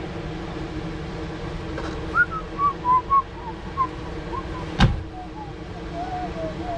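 Dog whining: a string of short, high, wavering whimpers, then a longer drawn-out whine near the end, over a steady low hum. A single sharp click comes about five seconds in.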